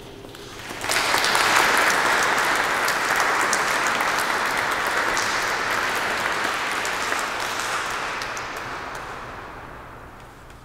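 Audience applauding, starting about a second in, then slowly fading away near the end.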